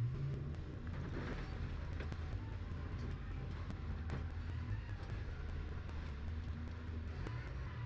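Excavator engine running with a steady low drone.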